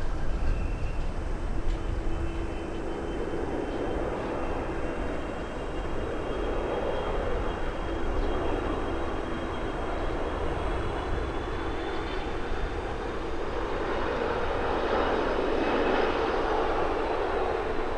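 Airbus A330-300 airliner on landing approach with gear down, its twin jet engines giving a steady rumble with a high fan whine. The whine slowly rises in pitch and the sound grows louder as the plane passes close, loudest about 16 seconds in.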